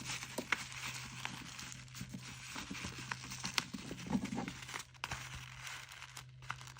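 Faint paper rustling and crinkling with small irregular crackles: crumpled paper stuffing and paper sheets being handled and pressed together.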